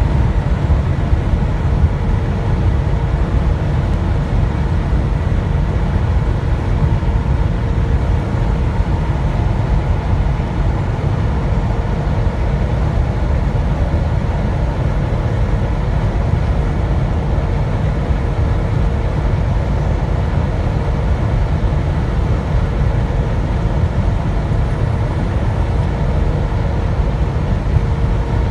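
Steady low road rumble of tyres and engine heard from inside a vehicle's cabin while cruising at highway speed, with a faint steady tone running through it.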